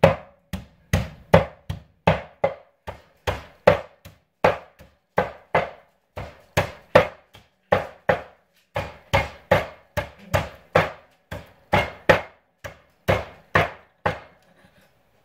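Hatchet chopping a raw chicken quarter through meat and bone on a wooden butcher block, with steady, evenly spaced blows about two or three a second. The chopping stops about a second before the end.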